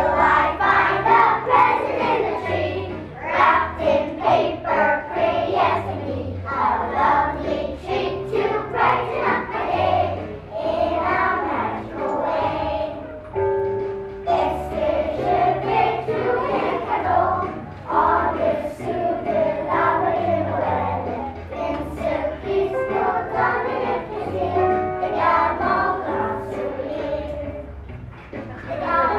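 A young children's choir singing together, with steady low accompaniment notes underneath.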